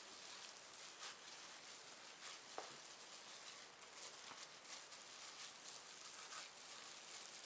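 A plastic-gloved hand squishing and kneading seasoned ground pork in a stainless steel bowl: faint, irregular wet squelching and soft pats.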